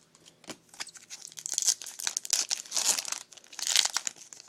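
Wrapper of a Topps baseball trading-card pack being torn open and crinkled by hand, in several irregular crackling bursts with small clicks between.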